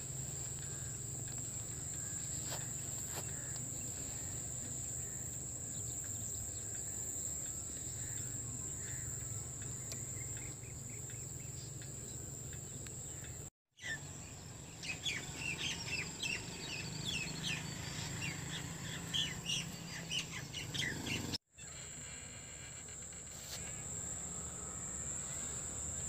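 Rural outdoor ambience: a steady high-pitched insect drone over a low hum. In the middle stretch many birds chirp rapidly in a tree. The sound breaks off briefly twice.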